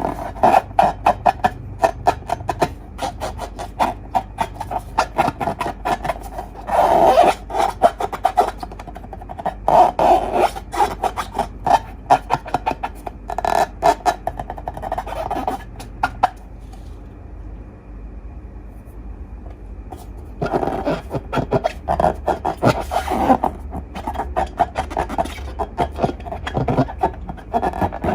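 Slime being squeezed and kneaded by hand, making dense runs of sticky crackles and clicks in bursts of a few seconds, with a quieter lull past the middle.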